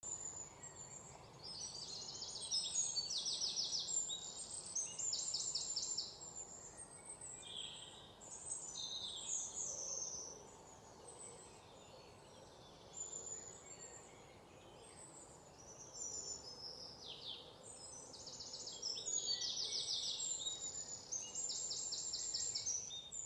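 Songbirds singing: high chirps and fast trilled phrases repeating every second or two, over a soft steady background hiss.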